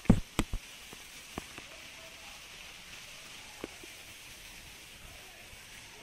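Waterfall water rushing and splashing steadily, with a few sharp knocks in the first half-second.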